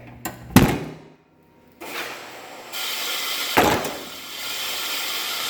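Two sharp knocks about three seconds apart, like objects being set down or banged. A steady hiss starts about two seconds in and grows louder shortly before the second knock.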